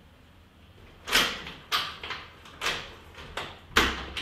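A closed front door being worked from the other side: about six sharp clicks and clunks of lock and handle over some three seconds, each with a short echo in the hallway.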